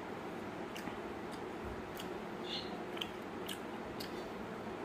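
A person eating: short, sharp clicks and smacks of chewing about every half second, over a steady low hum.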